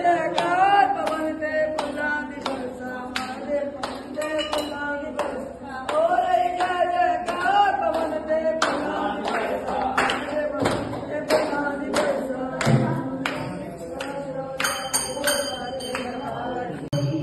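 Devotional kirtan: voices singing a bhajan over a steady dholki beat, about three strokes a second. Near the end a high ringing tone joins in.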